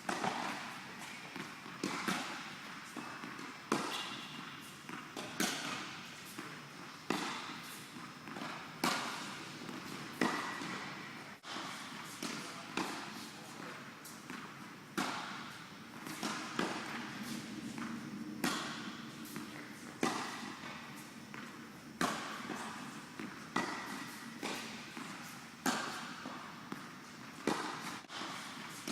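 Tennis ball rally: sharp racket hits on the ball about every one and a half to two seconds, each with a short fading ring, and softer ball bounces in between.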